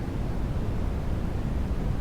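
Steady low rumbling noise with no distinct tones or clicks.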